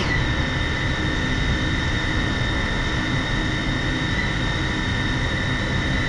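FPV quadcopter's brushless motors spinning at idle while it sits armed on the ground, a steady high whine with a low rumble beneath it and a brief rise in pitch right at the start.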